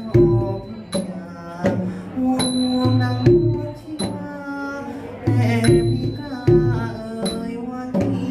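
Thai traditional ensemble music: a pitched melodic line over sharp percussion strokes that come roughly once a second.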